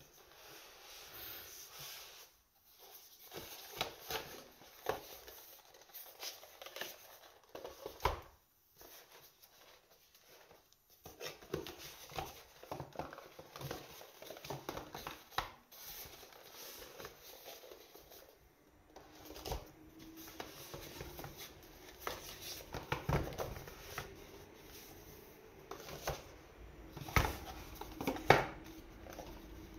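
Long cardboard knife boxes slid, shuffled and set down by hand on a wooden tabletop: irregular scraping and rustling with light knocks. The knocks come more often and louder in the second half.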